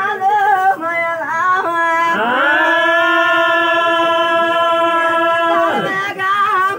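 A male folk singer chanting a verse of the Golla chaduvu, the traditional sung recitation of the Golla (Yadava) community. He sings wavering melodic phrases, then slides up into one long held note about two seconds in, sustains it for nearly four seconds, and lets it fall away before the phrases resume.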